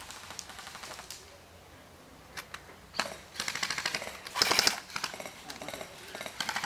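Airsoft guns firing rapid automatic bursts of sharp, fast clicks. The fire is faint early on, turns loud about three seconds in, and is loudest near the middle.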